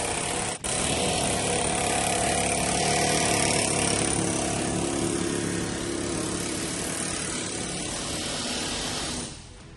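Loud power tool running steadily on the ripper box bushings, with a brief break about half a second in, stopping abruptly shortly before the end.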